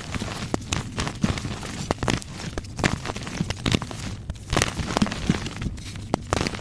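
Blocks of pink chalk being crunched: a dense, irregular run of sharp cracks and crackles, picked up close to the microphone.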